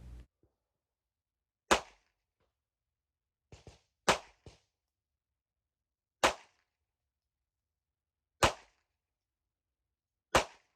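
Five single shots from a full-size 9mm Smith & Wesson M&P 9 pistol, slow fire about two seconds apart. A few fainter quick pops come around the second shot.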